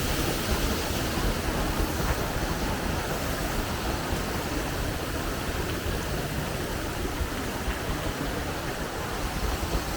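Waterfall, a steady rushing of falling water.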